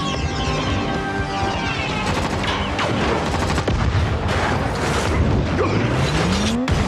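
Action-film sound mix: rapid gunfire and an explosion over a dramatic orchestral score, with a rising tone near the end that cuts off briefly.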